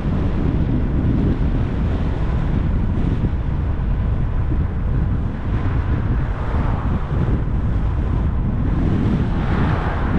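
Wind buffeting the microphone of a moving e-bike: a steady low rumble, swelling a little past the middle and again near the end.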